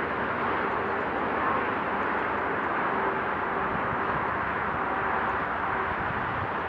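Steady wash of motorway traffic on a viaduct: the tyre and engine noise of passing cars and trucks blending into one continuous hum.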